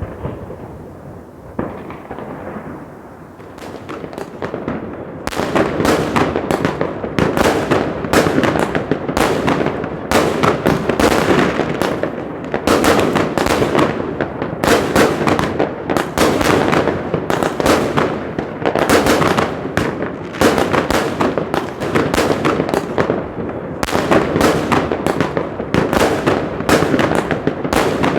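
Fireworks going off: a few scattered bangs for the first few seconds, then from about five seconds in a dense, continuous rapid crackle of bursts like strings of firecrackers.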